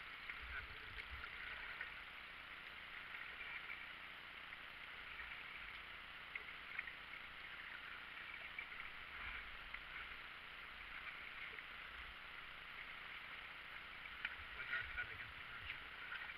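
Kayak paddle strokes dipping into and dripping on river water as the kayak moves along, a steady light splashing with small drips, and a few low rumbles.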